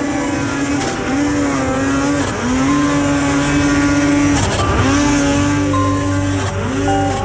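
Two-stroke Polaris snowmobile engine revving hard, its pitch dipping and climbing again several times as the throttle is blipped.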